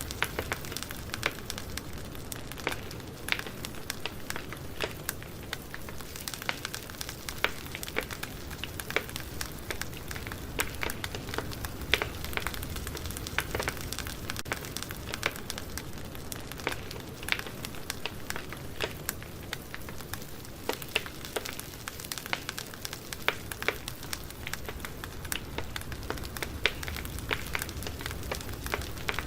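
Wood campfire burning, with irregular crackles and pops from the wood over a low, steady rush of flame.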